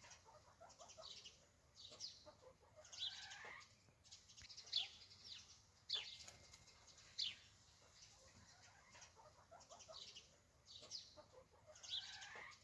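Faint bird calls: short chirps, each falling in pitch, repeating about once a second, with softer low chatter in between.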